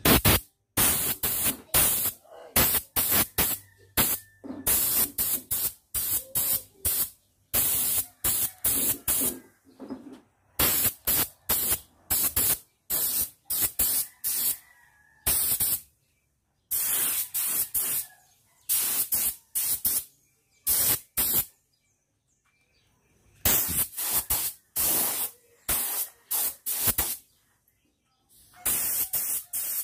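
Spray paint hissing in many short bursts as a motorcycle hub is painted, the bursts coming in quick clusters with a couple of pauses of a second or two.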